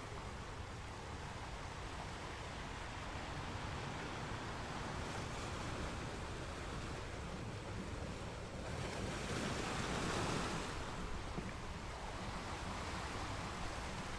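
Sea waves washing in: a steady hiss of surf, with one wave swelling louder for a couple of seconds a little past the middle.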